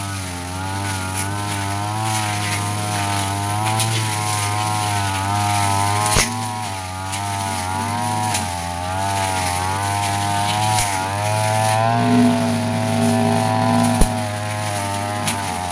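Yasuka backpack brush cutter engine running under load while cutting grass and weeds, its pitch wavering slightly up and down as the cutter is swung. A few sharp clicks cut through, one about six seconds in and one near the end.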